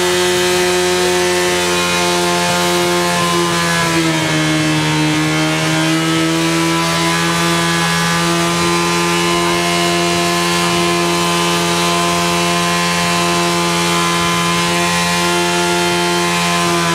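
Yamaha R1 inline-four motorcycle engine running continuously on a test stand while being deliberately run to destruction, smoke pouring from it. It holds a steady pitch that sags briefly about four seconds in and again near the end.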